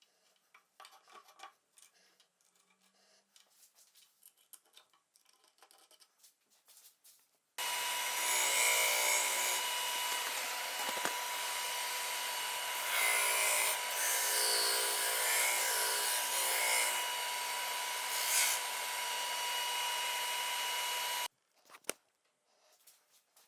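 Faint clicks of tools and wood being handled, then an electric power tool working wood for about fourteen seconds, starting and stopping suddenly.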